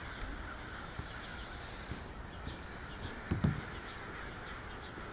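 Steady outdoor background with faint bird chirps, and a short low bump about three and a half seconds in as a child reaches the bottom of a plastic playground slide.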